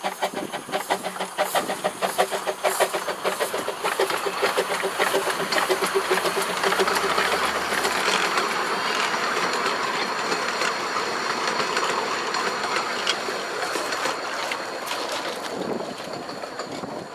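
Hunslet quarry 0-4-0 saddle tank steam locomotive Jack Lane working a narrow-gauge passenger train. A rapid, regular run of exhaust beats comes over the first few seconds as it passes, then a steady rumble and clatter of carriage wheels on the rails, fading near the end as the train moves away.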